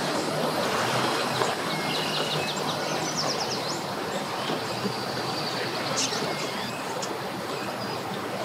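175 hp outboard motor running in gear at low speed, pushing a bass boat up onto its trailer, with water churning at the stern; a steady rumble that holds throughout.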